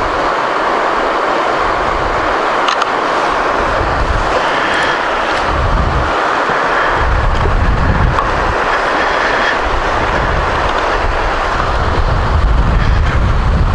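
Shallow river water rushing over rocky shoals and small rapids, a steady hiss. Gusts of wind buffet the microphone, more heavily in the second half.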